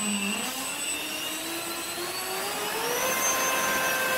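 Dynam 70 mm twelve-blade electric ducted fan with a 2600 kV brushless motor running up on a 4S battery during a static thrust test. A rising whine over a rush of air climbs for about three seconds, then holds steady at high throttle.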